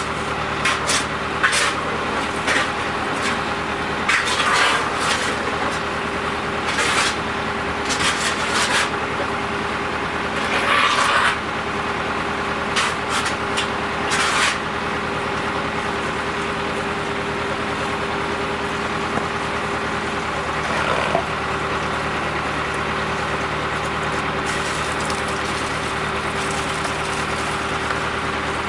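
Septic vacuum truck running steadily at the tank, its engine and vacuum pump giving a constant hum with a steady tone. During the first half, short knocks and bursts of hiss come and go over it, then it runs on evenly.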